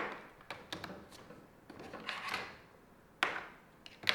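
HDMI and USB-A cable plugs being handled and pushed into a laptop's ports: small clicks and scuffs with soft rubbing between them, and two sharper knocks near the end.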